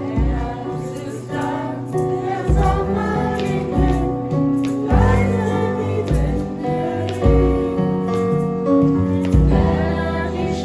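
Choir singing a song with instrumental accompaniment and a low beat recurring about every two and a half seconds; the music comes in abruptly at the start.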